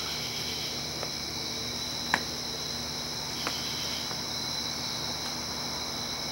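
Night-time chorus of crickets trilling steadily, with a few sharp clicks, the loudest about two seconds in.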